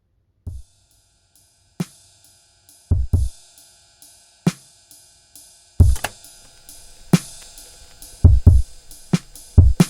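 Background music: a sparse drum-machine beat of kick, snare and hi-hat hits over a faint sustained tone. The hits start about half a second in and grow denser toward the end.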